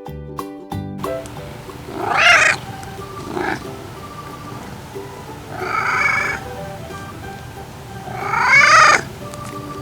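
Domestic cat meowing: three loud meows and one short, fainter one, over soft background music.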